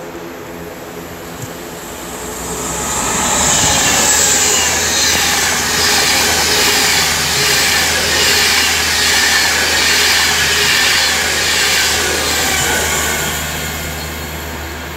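An Avanti West Coast Class 390 Pendolino electric train passing through the station: a rushing roar that builds over a couple of seconds, holds for about ten seconds, then fades near the end.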